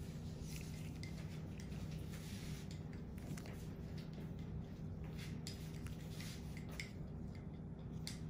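Steady low hum under scattered faint clicks and small handling sounds, from gloved fingers and a metal extraction needle working on skin.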